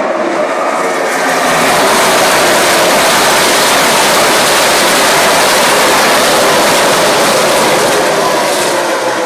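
A pack of NASCAR Sprint Cup stock cars with V8 engines passing at racing speed on the opening lap. The engine noise swells into a loud, dense wall of sound about a second and a half in and eases slightly near the end.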